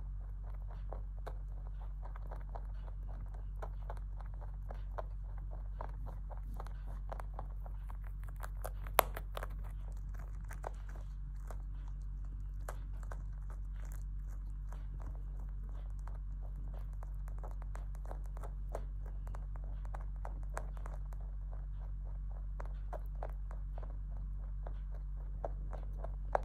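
A domestic rabbit crunching and chewing compressed hay granules: a fast, uneven run of small crisp crunches, with one sharper crunch about nine seconds in. A steady low hum lies underneath.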